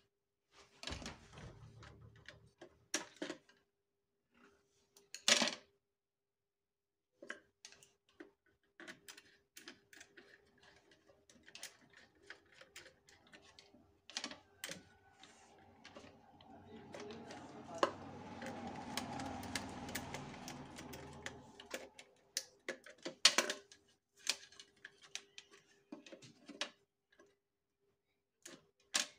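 Irregular sharp clicks and snips of hand wiring work: wire-cutting pliers cutting and stripping insulation on wire, with wire and a plastic modular switchboard being handled. About halfway through there is a few seconds of rushing noise with a low hum.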